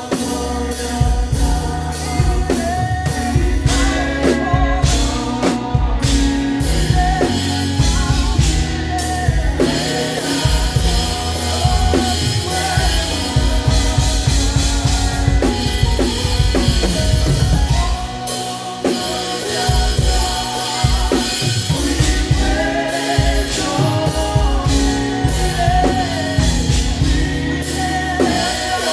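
Live church praise band playing a worship song: a drum kit keeping a steady beat under voices singing, with sustained low notes beneath.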